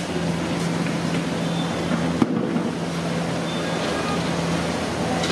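Hot oil sizzling steadily in a large kadai as batter-coated green chillies (mirchi bajji) deep-fry, over a constant low hum, with one sharp click about two seconds in.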